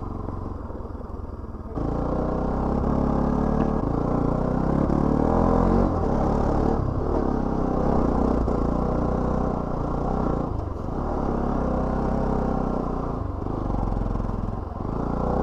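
Motorcycle engine running as the bike is ridden on a rough hill road, quieter for about the first two seconds and then louder.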